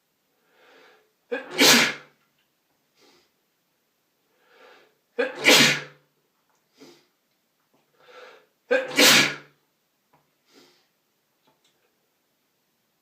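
A person sneezing three times, about four seconds apart, each loud sneeze preceded by a quieter breathy build-up.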